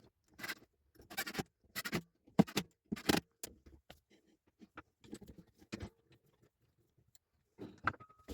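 Workshop handling noise: a run of irregular short knocks, scrapes and clatter of wood and tools being moved about, busiest in the first half, quieter in the middle, with a couple more knocks near the end.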